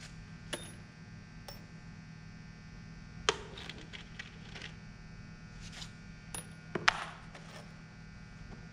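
Loose steel drywall screws clinking and rattling as they are dropped by hand into plastic sorting bins: scattered sharp clicks and short bursts of clatter, the loudest about three seconds in and again near seven seconds. A steady low electrical hum runs underneath.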